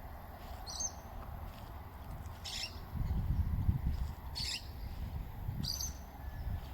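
A bird calling over and over with short, high calls about every one and a half to two seconds, over a low rumble that gets louder about halfway through.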